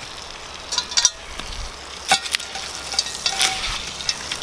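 Butter sizzling in a cast-iron pot over campfire coals, with a few sharp clicks and scrapes as the coals are raked and the pot is set down on them.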